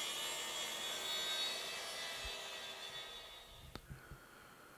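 Track saw cutting a Doug fir tabletop to size, faint and steady, fading out about three seconds in, followed by a few soft knocks.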